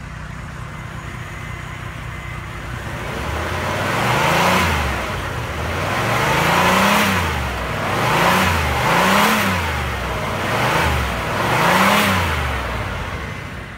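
1991 Cadillac DeVille's 4.9-litre V8, fully warmed up, idling and then revved about six times. Each rev rises and falls back toward idle, and the revs come closer together after the first two.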